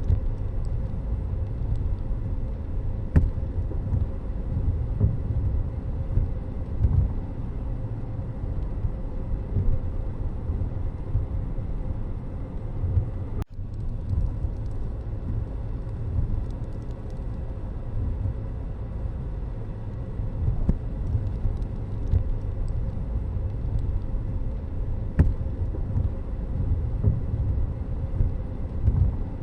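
Steady low rumble of a vehicle on the move, with road noise fluttering underneath; it drops out abruptly for a moment about halfway through.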